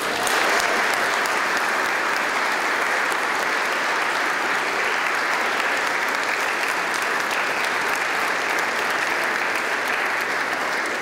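Church congregation applauding: dense, steady clapping from a large crowd that comes in all at once.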